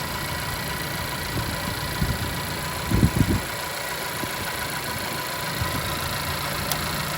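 2016 Honda CR-V engine idling steadily, with the air conditioning running on high. A few short knocks come about three seconds in, and a click near the end.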